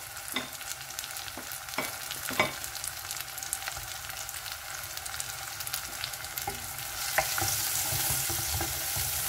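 Sliced onion topped with grated garlic and ginger sizzling in hot oil in a pot, with light crackling and a few sharp clicks in the first few seconds. From about seven seconds in the sizzle grows louder as a spatula stirs the mix.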